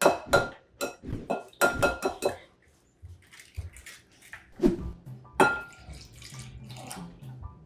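Eggs being tapped and cracked against the rim of a bowl: a quick run of sharp taps, each with a short ring from the bowl, then a couple more knocks and some light clatter.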